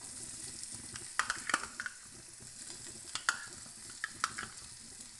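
Hot oil sizzling in a metal kadhai as boiled potatoes are stirred into it with a metal spoon, the spoon clicking and scraping against the pan several times.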